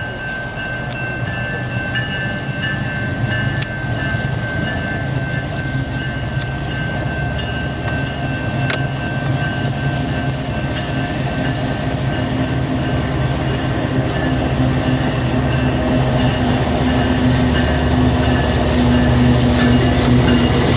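Railway crossing bell ringing with a steady pulsing tone while a Canadian Pacific diesel freight locomotive approaches. Its engine rumble grows steadily louder as it comes closer.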